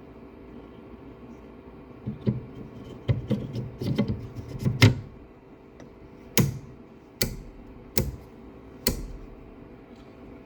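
Small parts being handled and knocked together on the printer: a stretch of clatter, then four sharp clicks under a second apart, over a steady low hum.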